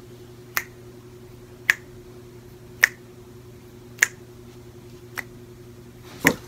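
Fingers snapping a slow, steady beat: six crisp snaps about a second apart, over a faint steady hum.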